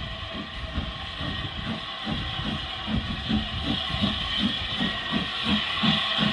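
Small steam tank locomotive working slowly along the track, with a steady hiss of steam. Its exhaust chuffs settle into an even beat of about four a second from about halfway.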